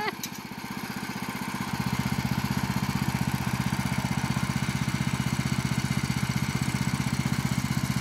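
Small gasoline engine of a TMG portable bandsaw sawmill running steadily with an even, rapid firing pulse, the blade not cutting. It gets a little louder about a second and a half in.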